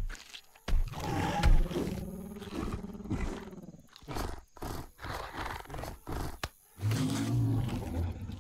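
Deep growls, one lasting about a second starting about a second in and another near the end, with crunching chewing clicks between them.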